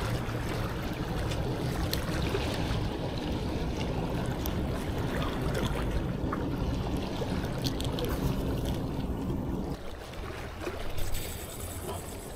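Steady rush of sea surf and wind at the shoreline, heaviest in the low range, with a few faint clicks; it eases about ten seconds in.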